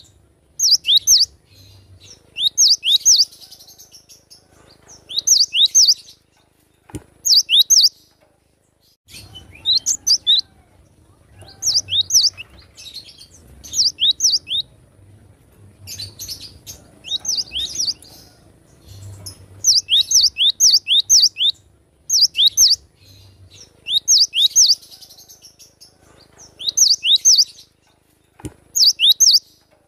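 Cinereous tit (gelatik batu) singing: quick phrases of a few sharp, falling notes, repeated in bursts every second or two.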